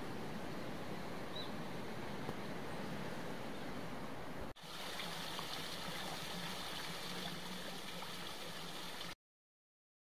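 Steady rushing water with one short bird chirp about a second and a half in. After a brief break about halfway, water falling and splashing from a wooden water wheel and rock cascade. It cuts off abruptly about a second before the end.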